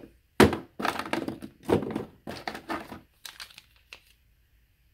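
Plastic skincare packaging and sample sachets crinkling and rustling as they are handled, in a quick run of short crackles that stops about four seconds in.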